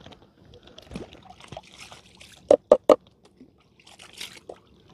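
Groundbait (chum) and water thrown from a bait container into the sea, splashing and trickling. About two and a half seconds in come three sharp knocks in quick succession.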